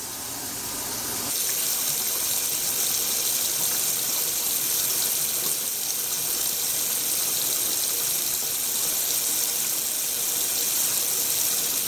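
Kitchen faucet running into the sink and down the drain, a steady rushing that builds over the first second or so and then holds. The water is running as a leak test of a newly fitted sink strainer basket and drain.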